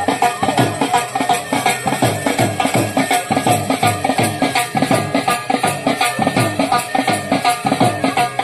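Dhol drums playing a fast, steady Bhaderwahi folk dance beat, with a held high tone running above the drumming.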